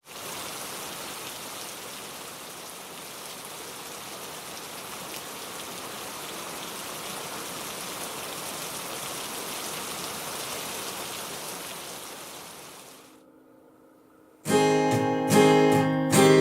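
Steady rain falling, an even hiss that fades out about 13 seconds in. After a short lull, an acoustic guitar starts strumming chords near the end.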